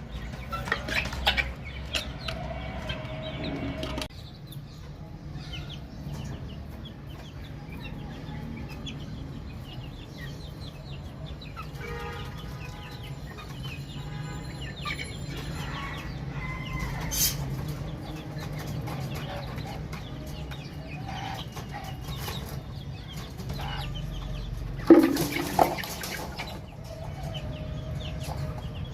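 Baby chickens chirping, many short high peeps going on at once, over a steady low hum. Near the end there is a louder, lower burst of calls.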